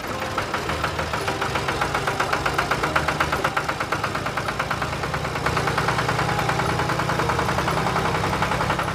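Steady, fast, evenly pulsing engine-like chugging with a buzzing tone, the running sound of a DIY mini model tractor.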